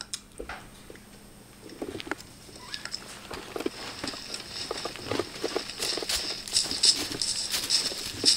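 Footsteps crunching and rustling through dry fallen leaves, sparse at first and growing denser and louder about three seconds in.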